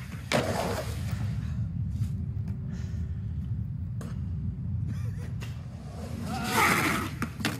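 A skateboard clacking and slapping on concrete during stair-trick attempts and a fall: several sharp knocks over a steady low rumble, with a short vocal cry near the end.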